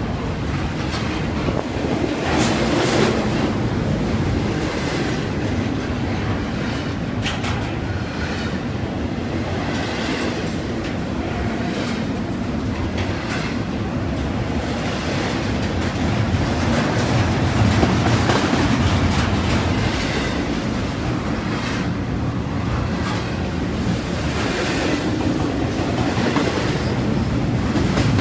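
Double-stack intermodal freight train's well cars rolling past close by: steady wheel-on-rail noise with irregular clicks and clacks from the wheels.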